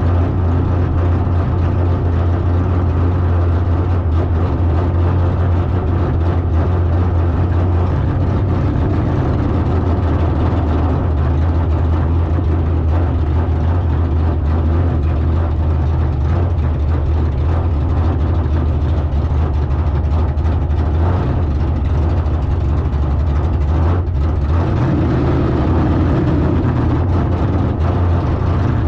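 Drag car engine idling steadily with a low, even rumble.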